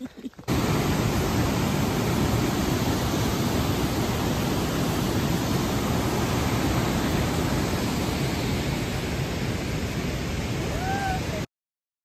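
Whitewater rushing down a narrow rock chute: a steady, loud rush of falling water that stops suddenly near the end.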